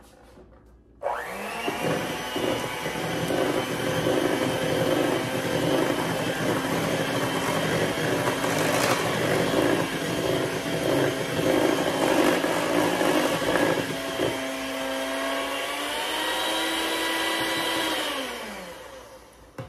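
Electric hand mixer switched on about a second in, its motor whining steadily as the beaters churn cake batter in a stainless steel bowl. The sound changes about fourteen seconds in, and near the end the motor winds down with falling pitch as it is switched off.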